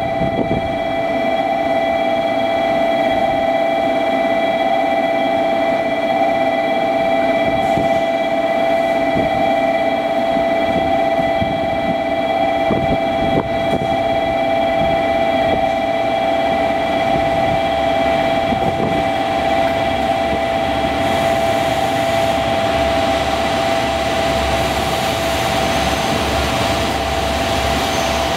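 A JR Kyushu KiHa 185 diesel railcar pulling into the station, its engine rumble and wheel noise building over the last several seconds as it rolls in along the platform. Beneath it runs a steady high-pitched hum of several tones, which stops as the train draws level.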